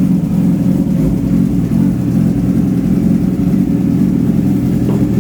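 Yamaha R6 sport bike's inline-four engine idling steadily, freshly started after sitting unused for about a month.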